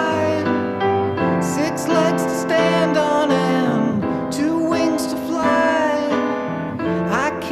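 Background music: a slow, gentle song with a voice singing over piano.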